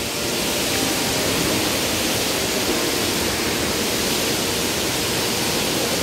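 Waterfall rushing: an even hiss of falling water with no breaks.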